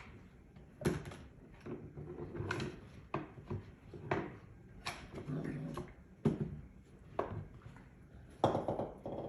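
Irregular sharp knocks and clicks, about seven of them, with softer clatter and low murmuring between, in a small room.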